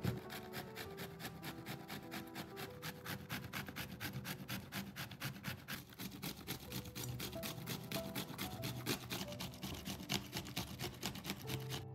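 Zucchini, then an onion, rubbed up and down a stainless-steel box grater: fast, even rasping strokes, about five a second, that stop suddenly near the end. Soft background music runs underneath.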